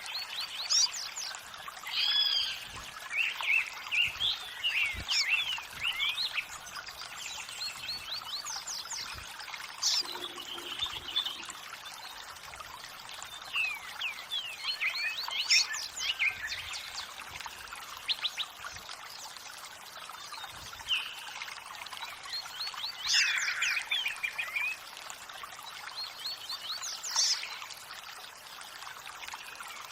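Running water trickling and pouring steadily, with songbirds singing over it in repeated bouts of rapid chirps and whistles.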